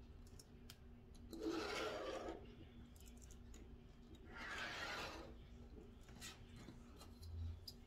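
Marking out with a pen and metal ruler on paper over a plastic chopping mat: two scratchy rubbing strokes, each about a second long, with a few light ticks between them.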